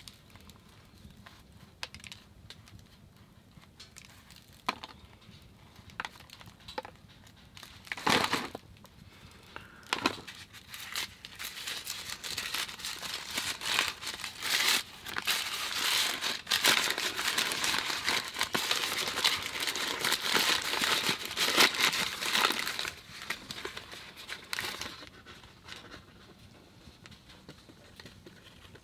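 Paper wrapping crinkling and rustling as a block of cheese is untied and unwrapped by hand. Before it come a few scattered small clicks and taps. The crinkling sets in about ten seconds in, is thickest in the middle and dies down near the end.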